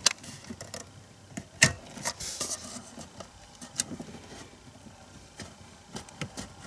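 Scattered sharp plastic clicks and knocks of wiring harness connectors being pulled off the stock idle speed ECU and the unit being handled, the loudest click a little after one and a half seconds in.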